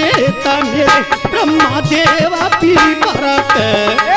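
Instrumental interlude of a Hindi devotional bhajan: a Roland E-X30 keyboard plays a lead melody that bends up and down in pitch over a steady drum rhythm.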